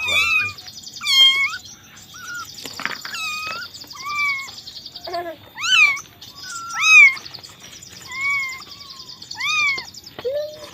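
Cat meowing repeatedly, about nine high meows a second or so apart, each rising and falling in pitch, over a steady high-pitched chirring.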